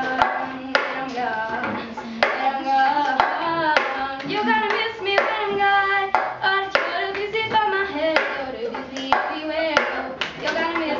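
A girl singing over the cup-game rhythm: hand claps and a plastic cup tapped, flipped and slapped down on a wooden table, in a repeating pattern.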